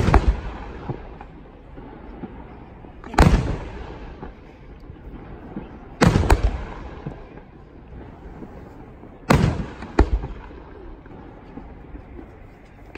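Aerial fireworks shells bursting one at a time, a sharp bang about every three seconds, each with a trailing echo that fades before the next.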